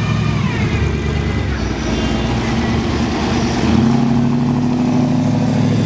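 Hot rod engine running as the car cruises slowly past, getting louder and steadier about halfway through as it comes close.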